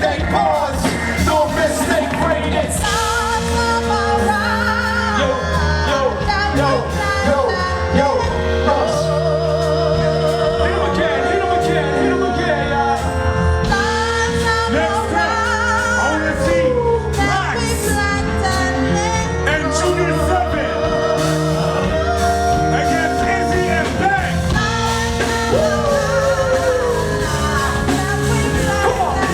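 Music with a sung, wavering vocal melody over a steady bass line.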